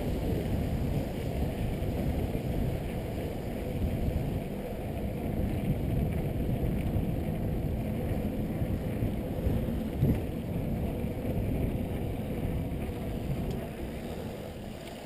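Specialized Demo 8.1 downhill mountain bike rolling over cobblestone and brick paving: a steady, rough rumble from the knobby tyres and the bike rattling, with one sharper knock about ten seconds in.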